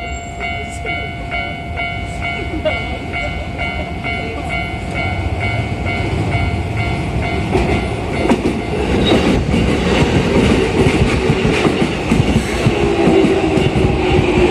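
Level-crossing warning bell ringing steadily, about two strikes a second. From about eight seconds in, a Keikyu New 1000 series train's wheels rumble and clatter on the rails as it draws in, growing louder and covering the bell, with a low whine near the end.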